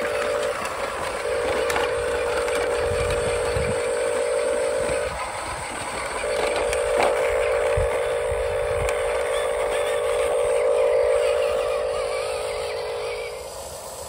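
Electric drive motors and gearboxes of a scale RC construction vehicle whining at a steady pitch over a constant rattle, running in stretches that stop and restart: a few seconds, a short pause, then about seven seconds more.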